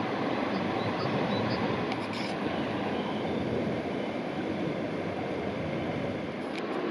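Steady rushing of water pouring over a small weir, with a couple of faint clicks.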